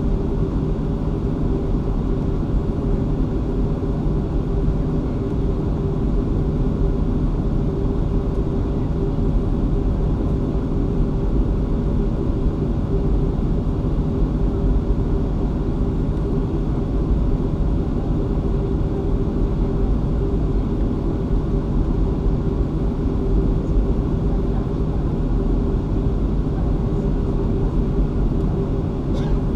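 Boeing 737-500's CFM56-3 turbofan engines running steadily at taxi power, heard from inside the cabin: a constant low rumble with a steady hum over it.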